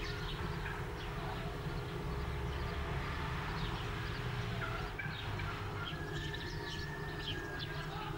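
Outdoor village ambience: small birds chirping in short high calls, thicker from about halfway on, over a steady low rumble and a faint hum.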